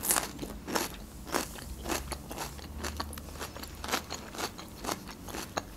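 Close-miked chewing of crisp lahmacun, thin flatbread on lavash: a run of irregular crunches, a few each second.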